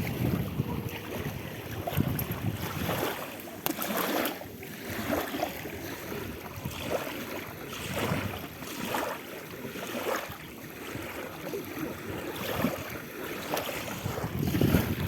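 Sea waves washing in irregular surges, with wind buffeting the microphone in low rumbling gusts.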